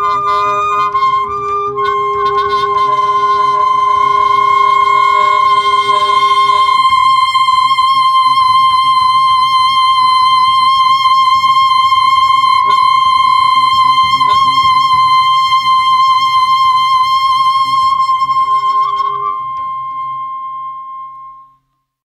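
Free-improvised jazz for tenor saxophone, alto saxophone and double bass. A saxophone holds one long high note through most of the passage, over a lower held note that drops out about seven seconds in. The music fades out just before the end.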